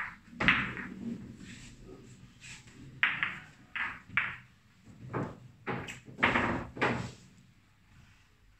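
A run of about eight short, uneven knocks and clacks of billiard balls being handled, gathered and set down on the table and cushion between shots. The loudest comes about half a second in.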